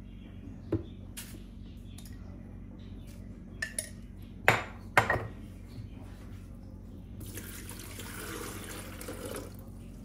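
Glass coffee jar and its lid clinking and knocking on the counter at a drip coffee maker, with two louder knocks about four and a half and five seconds in. Near the end, water pouring for about two seconds as the coffee maker is filled.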